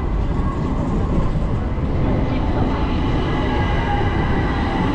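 Istanbul tram right beside the platform: a steady rumble of wheels and running gear, with a faint high whine held throughout.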